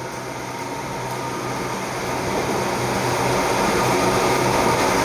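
Steady mechanical hum and hiss, with a low drone and a fainter higher whine held throughout, growing gradually louder.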